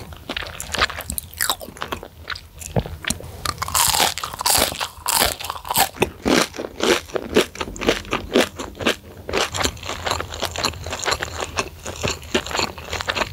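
Close-miked biting and chewing of a fried breaded chicken stick coated in chili flakes: dense, crisp crackling of the fried crust as it breaks up between the teeth.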